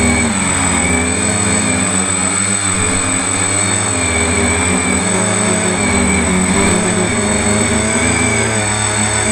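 Multicopter's electric motors and propellers heard from a camera mounted on the copter itself, running loud and steady with the pitch wavering up and down as the throttle changes. A steady high whine runs over it.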